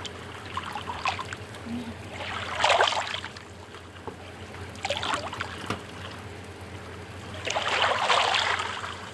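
Liquid poured into a glass in two short pours, the first about two and a half seconds in and the second near the end, over a steady low hum.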